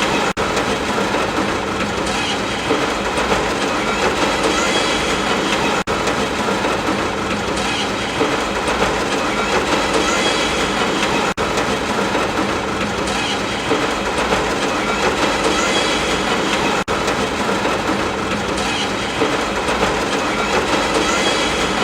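Steady, heavy rainfall, a dense even hiss with a brief dip in level about every five and a half seconds.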